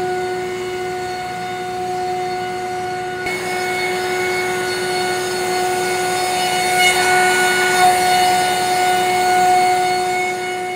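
AXYZ 4012 CNC router's 10 HP high-speed spindle running with a steady high whine while the bit cuts a fibreboard sheet. A hiss of cutting and dust extraction joins about three seconds in and grows louder past the middle.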